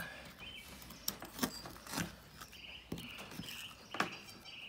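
Quiet boning-knife work in a lamb forequarter: a few soft clicks and taps as the blade works around the shoulder-blade joint. A faint high chirping repeats steadily from about halfway on.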